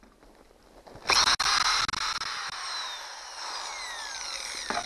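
DeWalt drill starting about a second in and running for roughly three and a half seconds, its whine falling in pitch as the bit bites, enlarging a bolt hole in a bow-mount trolling-motor mount. It stops shortly before the end.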